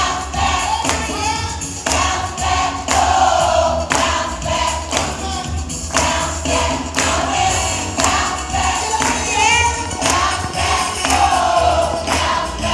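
Gospel choir of young singers singing a praise song, with sharp percussion strikes on the beat about once a second.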